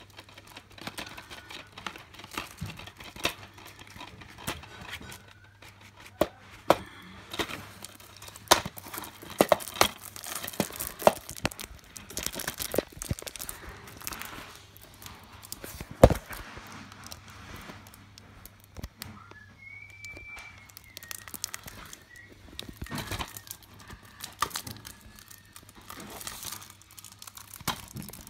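Plastic wrapping on a DVD case being torn and crinkled off by hand, with scattered clicks and knocks of the plastic case being handled; one sharp knock stands out about halfway through.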